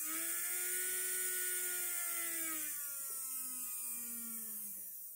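Small DC motor with flywheels from a Hornby J15 OO gauge locomotive, spinning on its own with the worm gear removed. It gives a high whirring whine that holds steady, then sinks slowly in pitch and fades near the end. The motor is noisy in itself, which the repairer puts down to a badly balanced armature or flywheels.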